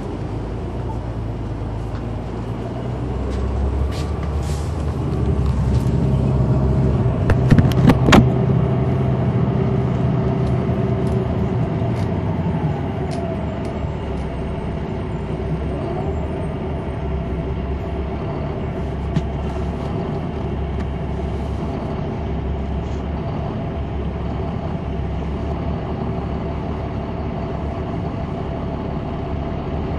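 Diesel engine hum of a 2003 Neoplan AN459 articulated transit bus with a Caterpillar C9 engine, heard inside the bus cabin. The hum swells from a few seconds in until about twelve seconds, with a burst of rattles and knocks about eight seconds in, then settles back to a steady hum.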